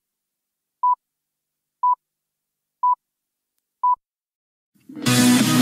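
Countdown beeps: short single-pitch electronic beeps, one a second, four of them. About five seconds in, guitar music starts suddenly.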